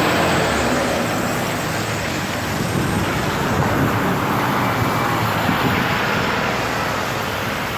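Dense rush-hour city street traffic: a steady wash of car, bus and truck engines and tyre noise with low engine rumble.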